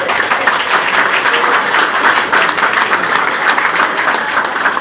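Audience applauding: dense, rapid clapping that eases off slightly near the end.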